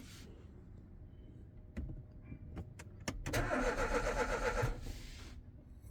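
Clicks as the Renault Mégane's key is turned to crank, then a whir of about a second and a half, but the engine does not crank: the wrong ECU is fitted, so the car will not turn over.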